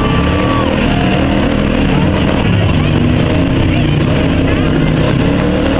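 Several demolition derby car engines running and revving together, loud and continuous. A held high tone cuts off about half a second in.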